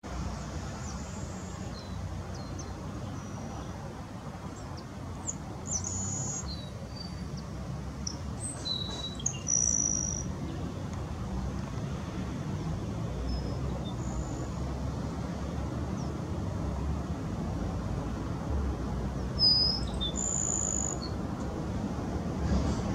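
Birds chirping: short, high whistled notes every few seconds, louder around six, ten and twenty seconds in, over a steady low rumble.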